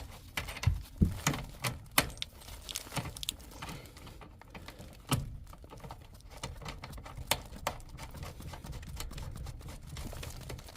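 Irregular sharp clicks and clinks of small metal tools and fittings being handled, thickest in the first few seconds, over a low background rumble.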